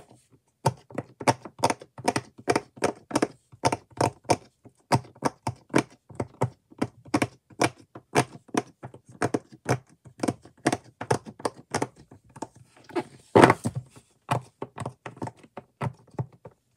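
Bubbles of a large silicone octagon pop-it fidget toy being pressed in one after another, a quick run of sharp pops at about four or five a second, with one louder thump about three-quarters of the way through.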